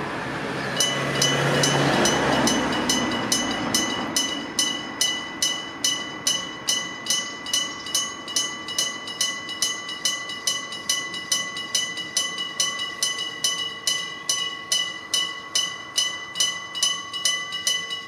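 Electric gong bell of a Japanese level crossing striking rapidly and evenly, about two and a half strikes a second, starting about a second in and ringing on without a break as the crossing warns of an approaching train. A passing vehicle rumbles under it in the first few seconds.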